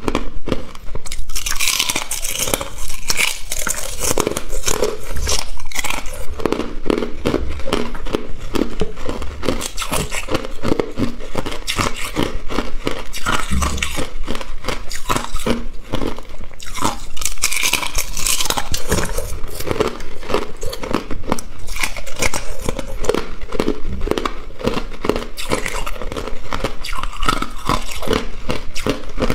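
A person biting and chewing hard clear ice: a dense, continuous run of crunches and crackles.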